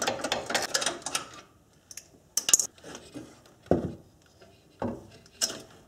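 A ratchet clicking rapidly as the 12 mm fasteners of the air pump bracket are backed off, then a few separate metal clunks and knocks as the air pump and its steel bracket are worked free.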